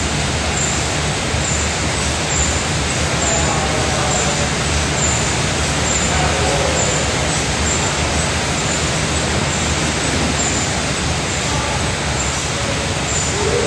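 Steady loud rushing noise, with faint voices in the background.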